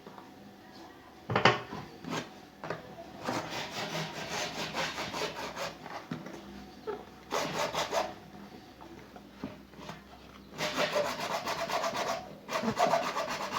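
Fast back-and-forth scraping strokes of a hand tool on a washing machine part, coming in several bursts with short pauses between them, with a couple of knocks before the first burst.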